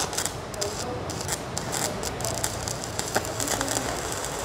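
Two stick-welding (MMA) arcs burning side by side on 4 mm electrodes from Protech MK200 and Jacpro MMA 325 mini inverter welders, a steady crackling and spitting with sharp spatter pops. The arcs strike right at the start.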